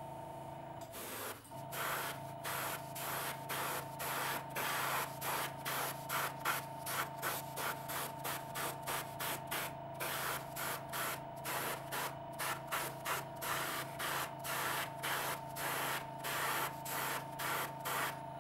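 Airbrush spraying thinned enamel paint in short, repeated bursts of hiss, about two or three a second, starting about a second in. Under it runs the steady hum of the airbrush compressor.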